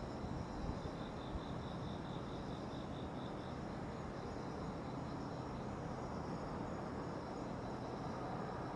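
Night insects chirping steadily in several high-pitched bands, with one insect's pulsed trill from about a second in to near the middle, over a low steady background rumble.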